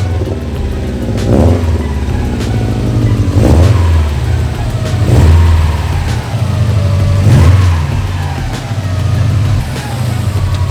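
Car engine and exhaust revving, swelling up and easing off several times, about every two seconds.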